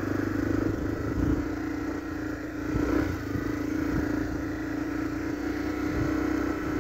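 Honda XRE motorcycle's single-cylinder engine running steadily at low road speed along a sandy dirt track, with a few low thumps scattered through.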